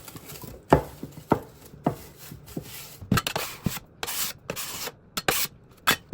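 Plastic wrap being pulled, crinkled and pressed over trays of bread dough, with several sharp knocks on the counter.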